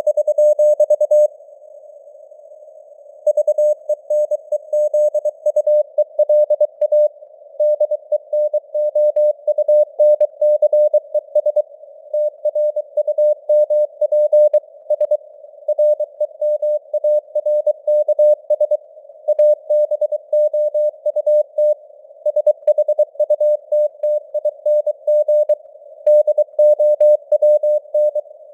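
Morse code (CW) sent at 23 words per minute: a single steady-pitched tone keyed rapidly on and off in dots and dashes, over a narrow band of hiss from simulated radio noise. The signal strength varies as if fading on the air (QSB), and the keying stops for about two seconds near the start.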